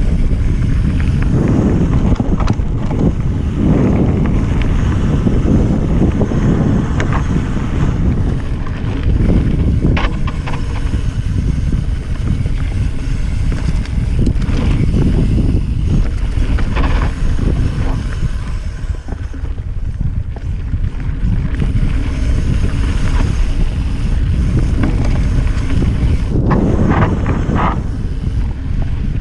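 Heavy wind buffeting on an action camera's microphone as a Cannondale F-Si mountain bike descends a dirt trail at speed, with tyre noise on the dirt and now and then a sharp rattle or knock from the bike over bumps.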